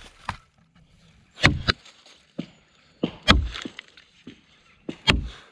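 Brades Tasmanian pattern axe chopping into a log: three heavy blows about two seconds apart, with lighter knocks in between.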